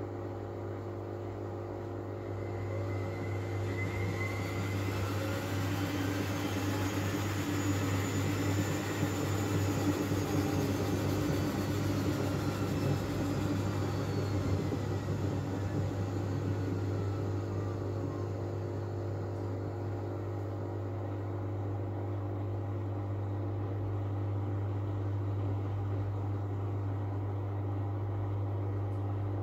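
Miele W433 front-loading washing machine in an intermediate spin: a steady low hum throughout while the drum motor's whine climbs in pitch for several seconds, then winds back down. The spin is broken off because the machine has detected suds lock, too much foam in the drum.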